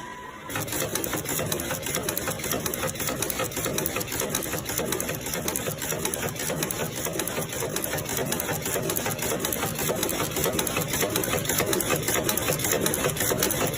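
A machine running with a rapid, steady clatter of fine ticks, starting about half a second in.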